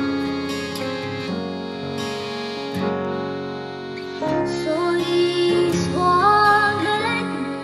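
Slow folk song played on acoustic guitar, piano and accordion. About four seconds in, a woman's solo voice comes in, singing the melody in Scottish Gaelic.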